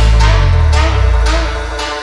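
Electronic background music with a heavy bass line that fades down near the end.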